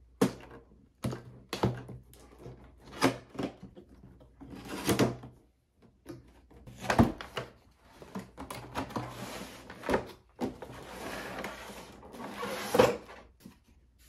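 Packaging being handled while a product is unboxed: a series of sharp knocks and clicks as the box and its parts are opened and set down, then a longer sliding, rustling scrape in the second half.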